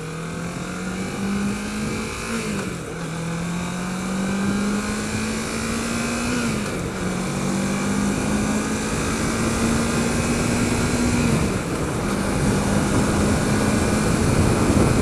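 2008 Kawasaki Ninja 650R's parallel-twin engine pulling hard through the gears, its pitch climbing and then dropping at three upshifts, about two and a half, six and a half and eleven and a half seconds in, over wind noise. It grows gradually louder as speed builds.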